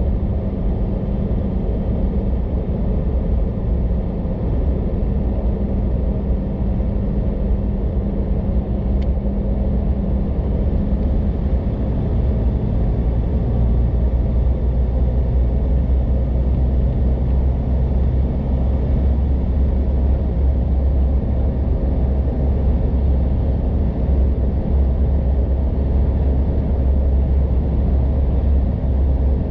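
Road noise inside the cab of a 2015 Isuzu D-Max dual cab driving at highway speed with a Yakima Ruggedline roof rack and Platform A fitted: a steady rumble of tyres, wind and engine drone. About ten seconds in, the higher hum fades and the low rumble deepens and grows slightly louder.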